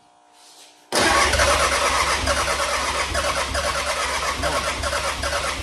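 Ford Ranger 2.3 L turbodiesel (Mitsubishi 4D55) being started and struggling to run. It cuts in suddenly about a second in and then keeps going loud and steady with a pulsing low rumble. The engine still has a fuel issue to be sorted out.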